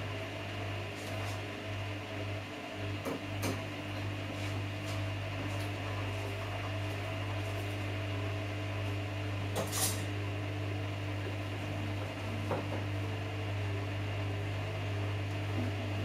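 Samsung Eco Bubble front-loading washing machine running its fast wash cycle: a steady low motor hum with a few short clicks.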